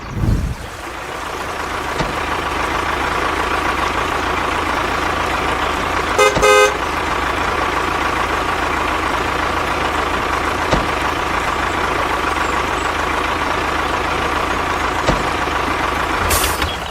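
A vehicle running steadily, with a short horn toot of two quick pulses about six seconds in. There is a low thump right at the start.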